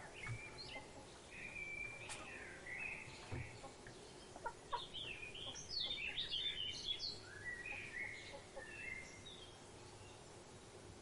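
Birds calling: a run of short chirps and whistled notes that comes thickest and loudest in a quick rattling burst in the middle, then thins out, over a faint steady background hum.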